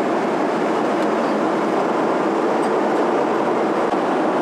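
Steady cabin noise of a Boeing 777 airliner in flight: an even hiss of airflow and engines at a constant level.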